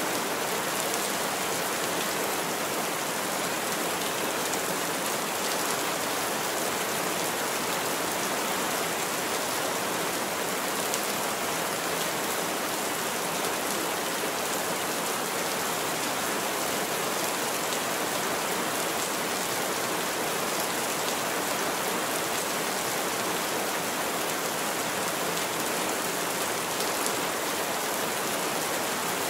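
Heavy rain falling steadily on a roof, an even hiss with scattered drop impacts.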